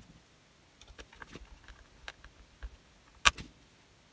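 Small screws and a screwdriver being handled while screws go back into the netbook's plastic case: scattered light clicks and ticks, with one sharper click a little over three seconds in.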